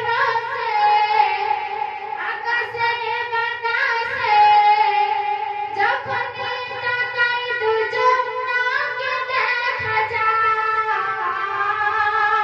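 A young woman singing a Bengali gojol, an Islamic devotional song, in a melodic line of long held and bending notes with instrumental accompaniment and a steady low note beneath.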